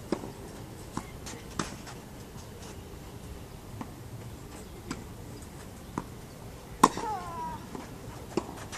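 Tennis racket strikes and ball bounces on a clay court during a rally: sharp single pocks at uneven intervals, the loudest about seven seconds in, followed by a brief falling vocal sound.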